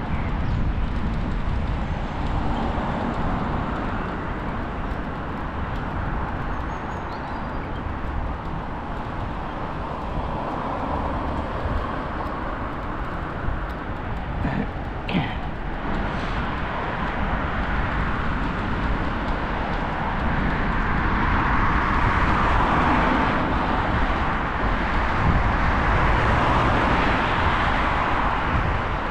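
Road traffic passing on a main road alongside, heard from a moving bicycle over a steady low rumble. The traffic grows louder in the last third as cars go by.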